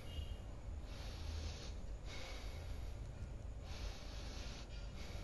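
A man breathing slowly and deeply through his nose, long soft in- and out-breaths of a second or more each, during a diaphragmatic (belly) breathing exercise.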